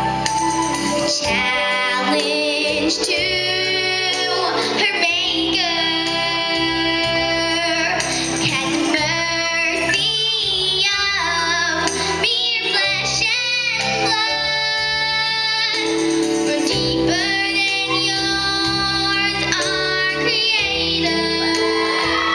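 A young female soloist singing a song into a microphone over a musical accompaniment, her voice gliding between held notes.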